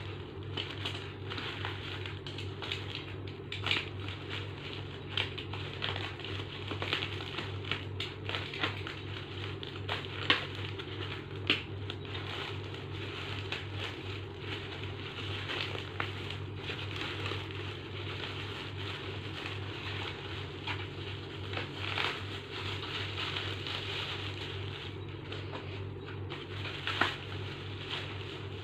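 Packaging being handled and unwrapped: crinkling plastic wrap and packing material, with scattered clicks and a few sharper snaps, over a steady low hum.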